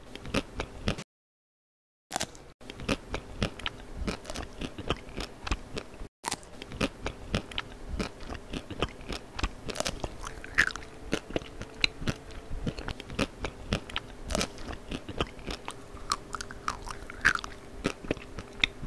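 Close-miked eating sounds: crisp food being bitten and chewed, dense irregular crunches coming several times a second, with a pause of about a second near the start.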